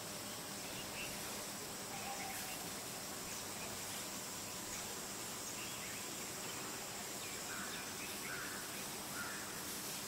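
Quiet outdoor ambience: a steady high insect drone, with a few faint short bird chirps scattered through, clustered near the end.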